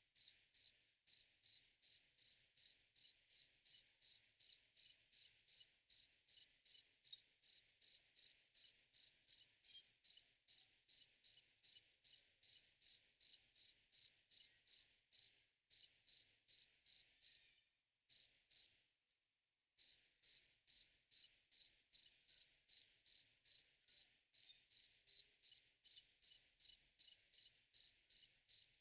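A cricket chirping: short, high-pitched chirps repeated evenly at about two or three a second, with a brief pause about two-thirds of the way through.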